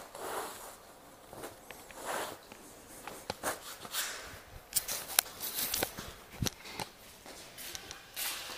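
Footsteps of a person walking, with a cloth bag rustling and rubbing against the microphone and a few sharp clicks around the middle.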